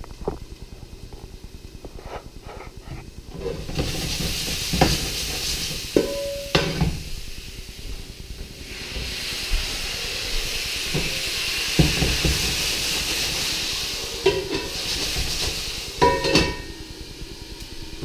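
Mushrooms hitting very hot olive oil, near smoking, in a frying pan and searing with a loud sizzle. The sizzle starts a few seconds in, dips briefly, then swells again, with knocks and clangs of the pan and utensils before it and near the end.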